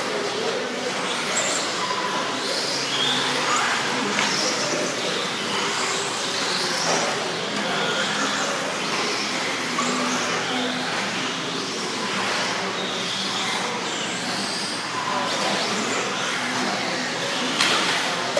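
Electric 1/10-scale 4WD RC buggies racing on a dirt track, their motors whining up and down in pitch as they accelerate and brake, over a steady haze of tyre and track noise, with voices in the background. A sharp knock comes near the end.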